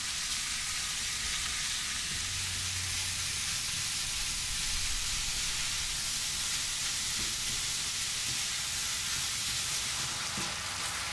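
Minced beef sizzling steadily in hot olive oil in a deep frying pan as it browns, broken up and stirred with a spatula.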